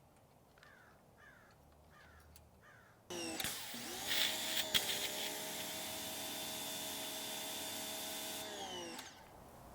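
An electric motor starts up suddenly, settles into a steady whine for about six seconds, then spins down with falling pitch as it stops. A few faint chirps come before it.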